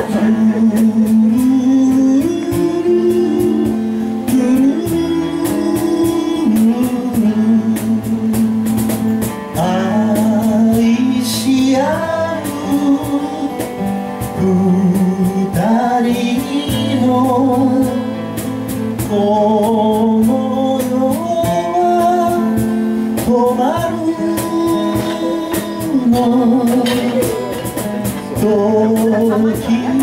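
A man singing a Japanese folk song to his own strummed acoustic guitar, through a vocal microphone, with long held sung notes.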